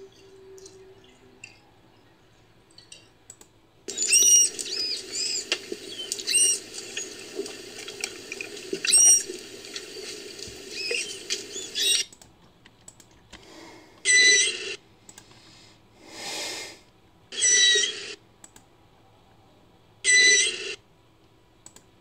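Made-up dugong calls, a sound effect pieced together from manatee and Desmostylus recordings. After a few quiet seconds comes a dense stretch of high, squeaky, rising-and-falling chirps lasting about eight seconds. Then come short squealing calls about every three seconds, with a breathy hiss between two of them.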